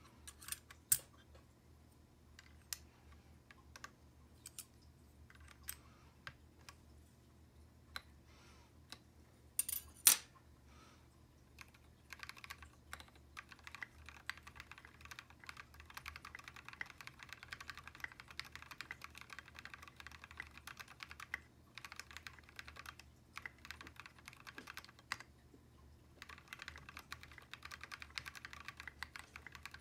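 Mechanical keyboard with Cherry linear switches: scattered single key taps and clicks for about the first ten seconds, two of them much sharper. Then continuous fast typing from about twelve seconds in, with a few brief pauses.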